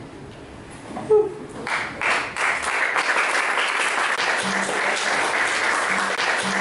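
An audience applauding. After a quiet second there is a brief shout, and then steady clapping starts and keeps going.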